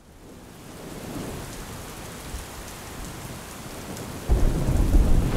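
Rain of a squall at sea, a steady hiss fading in. About four seconds in, a much louder deep rumble of wind gusting on the microphone comes in suddenly and keeps on.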